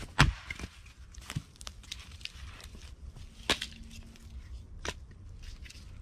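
A hatchet blow splitting a log on a wooden chopping stump, one sharp loud crack about a quarter second in. A few lighter wooden knocks follow as the split pieces are handled and tossed onto the woodpile, the clearest about halfway through, with footsteps rustling on leaf litter and grass.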